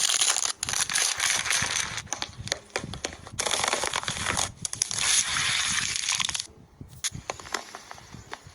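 Dense crunching and crackling of something being crushed, in uneven bursts with many small clicks, quieter and sparser after about six and a half seconds.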